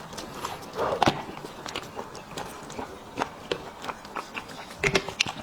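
Close-miked eating: irregular wet smacks and sharp clicks of someone chewing and pulling meat from a spicy sheep's head, with louder bursts about a second in and near the end.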